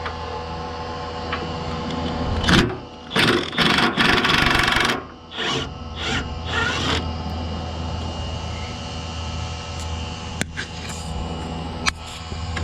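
Shop tool work on front-suspension bushings: a steady hum, with a run of loud, harsh bursts from about two and a half to seven seconds in, then a few sharp clicks and taps.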